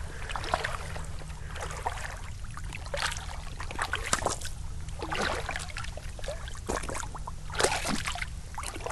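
Shallow water sloshing and trickling over submerged cobbles at a lake's edge, with irregular small splashes.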